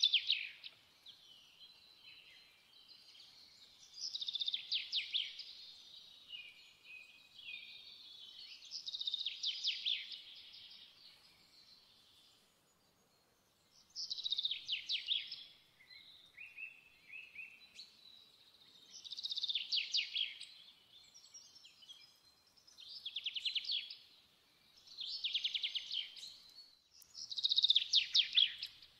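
A songbird singing in short, fast trilled phrases, one every four to five seconds.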